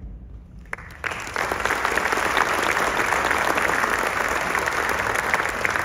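Audience applauding: a few first claps about a second in, then steady applause from a large crowd.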